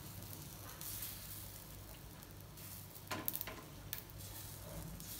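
Chickpea-flour (besan) batter sizzling faintly on a hot tawa, with a few light taps and scrapes of a metal ladle spreading it about three seconds in.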